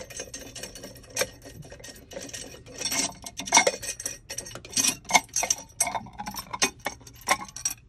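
Generator sea strainer cap being backed off and handled by hand. It gives a run of irregular metallic clicks, clinks and scrapes, busiest in the second half.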